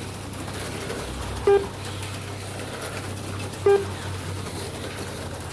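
Two short electronic beeps, about two seconds apart, from the slot car race's lap-counting system, over a steady low hum of the track running.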